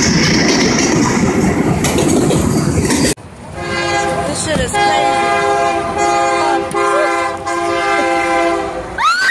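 A loud, noisy rumble as a tanker train crashes through a level crossing, then an abrupt change to a locomotive air horn sounding several tones at once in a series of long blasts with short breaks. Near the end comes a brief rising and falling squeal.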